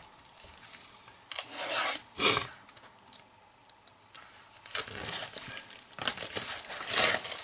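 Clear plastic shrink-wrap around a stack of laser-cut plywood sheets being slit with a hobby knife and pulled off by hand, crinkling and tearing. There are two short bursts of crackle about a second and a half in, then steady crinkling over the last two or three seconds, loudest near the end.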